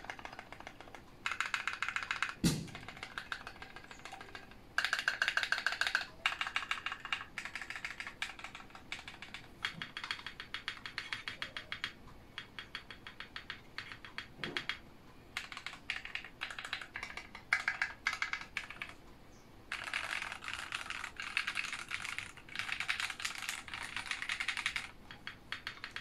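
Typing on a walnut Tofu60 mechanical keyboard, o-ring mounted with a polycarbonate plate, Auralite switches lubed with 205g0 and EPBT ModernJa PBT keycaps: quick runs of soft keystroke clacks in bursts with short pauses between them. One sharp knock cuts through about two and a half seconds in.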